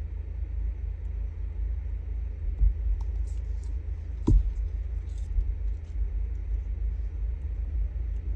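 Handling on a craft tabletop: two soft thumps, about two and a half and four seconds in, and faint paper crinkles while a paper flower and a glue bottle are handled, over a steady low background rumble.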